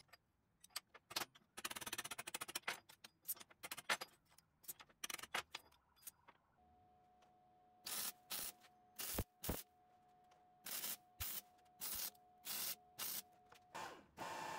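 Electric arc welding on steel. Several seconds of irregular crackling and popping come first. Then about ten short welding bursts, each under a second, with a steady tone between them, as the pieces are tacked and stitched together.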